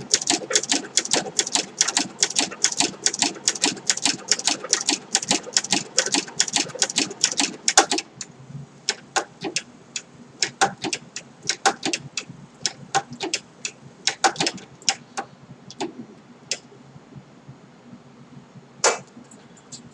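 Singer 7-34 sewing machine stitching leather, with a rapid, regular clicking of stitches for about the first eight seconds. Then it goes on in slower, scattered clicks, with one louder click near the end.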